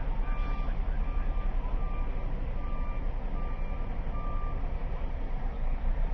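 A heavy vehicle's reversing alarm beeps six times at an even pace, about one beep a second, then stops a little past halfway. A steady low engine rumble runs underneath.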